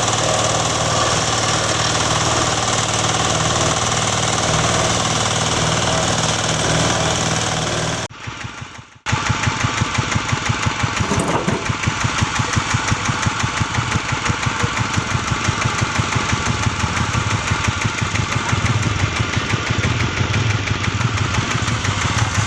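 Wood crusher machine running with a dense, steady mechanical noise. About eight seconds in the sound breaks off for a second. It then gives way to an engine running with a fast, even thumping.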